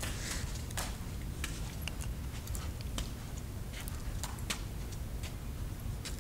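Footsteps and phone-handling clicks, irregular light taps over a steady low rumble, as someone walks around a parked car on a concrete garage floor.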